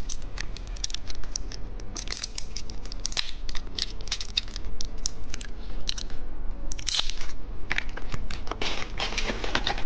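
Plastic candy packaging being handled: a dense run of quick crinkles, clicks and scratches as the wrappers are rustled and pulled at.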